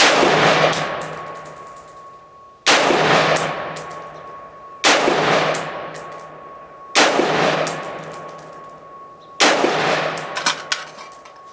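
Radical Firearms RF-15 AR-15-style rifle firing 55-grain ammunition, five single shots roughly two seconds apart, each echoing away slowly. Light metallic clinks of ejected brass follow the shots, most clearly after the last.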